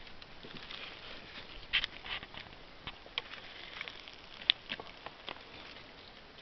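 A small tinder fire of dry grass and cedar bark crackling, with irregular sharp snaps and clicks, the loudest a little under two seconds in and again midway, along with the light knocks of thin wood splints being laid on it.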